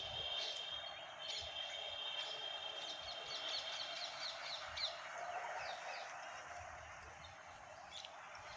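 Birds calling: a held high whistling note, then a quick run of short falling chirps, over steady outdoor background noise.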